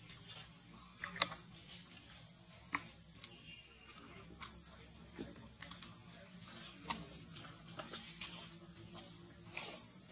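A steady, high-pitched drone of insects, with irregular sharp clicks and snaps scattered through it, about seven in ten seconds.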